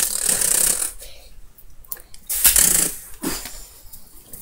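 A person making gunfire sound effects with the mouth: two hissing bursts about a second and a half apart.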